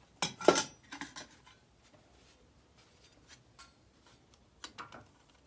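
Metal tractor parts clanking and clinking as they are handled and set down: one sharp clank about half a second in, then a few lighter clicks around a second in and again near the end.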